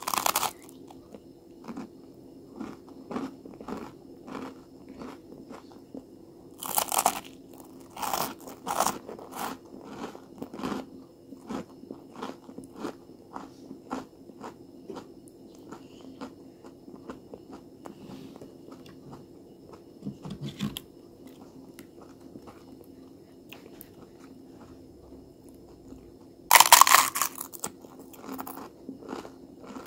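Bites into crusty toasted bread and chewing, with a run of small crackling clicks between a few louder crunches. Near the end comes the loudest crunch: a bite into a giant homemade rolled tortilla chip, a giant Taki.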